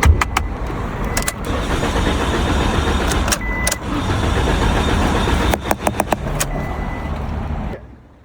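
Car engine running, with a few sharp clicks over it; the sound drops away near the end.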